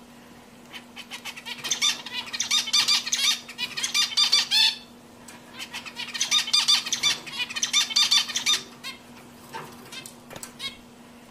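Male zebra finch singing: two bouts of rapid, repeated high notes, separated by a short pause about halfway through, over a faint steady low hum.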